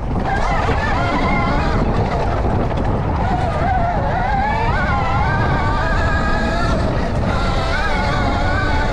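Sur-Ron Storm Bee electric motocross bike ridden hard on a dirt trail: its electric motor whines, the pitch rising and falling with the throttle, over a steady rush of wind and tyre noise.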